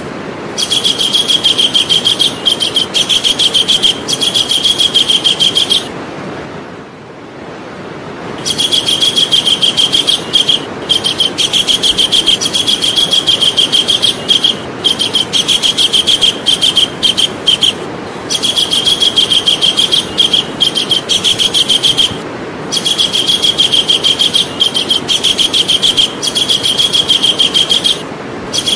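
Javan kingfisher calling: long runs of rapid, repeated, high rattling notes, over a steady hiss. The runs break off several times briefly, and once for about two seconds, about six seconds in.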